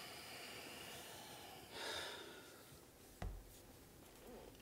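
Faint room tone with one breathy sigh of exasperation about two seconds in, then a soft click and low thump a little over a second later.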